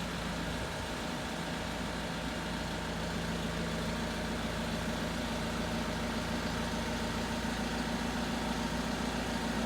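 Forklift engine running steadily while the mast raises a heavy load straight up. A second steady hum grows stronger about halfway through.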